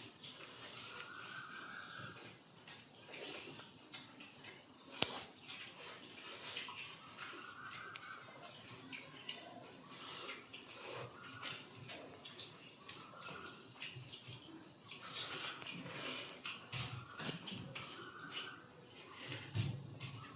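Steady high-pitched chirring of insects, likely crickets, with scattered faint clicks and taps.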